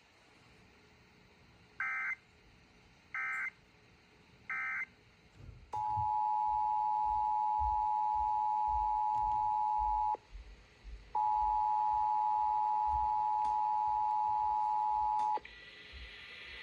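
Emergency Alert System tones: three short data-burst screeches of the end-of-message code, then the two-tone attention signal, held for about four seconds, breaking off for a second and sounding again for about four seconds.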